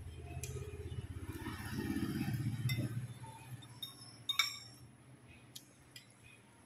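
Spoons and forks clinking against ceramic soup bowls, with a sharper clink about four seconds in. A low rumble swells and fades over the first three seconds, louder than the clinks.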